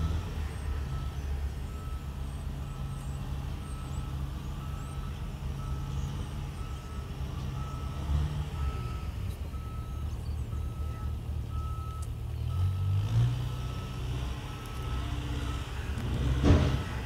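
An engine running steadily under a run of short, evenly spaced beeps at a single pitch, like a vehicle's reversing alarm, with a louder burst near the end.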